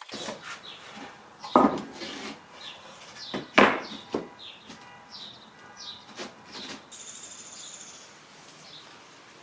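Plywood sled parts being handled and set against each other on the sled base: wooden knocks and scraping, with two louder knocks about one and a half and three and a half seconds in.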